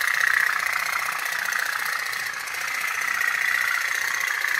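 Tin pop-pop toy steamboat running on a small candle flame, its little steam engine pulsing in a rapid, steady tuk-tuk-tuk.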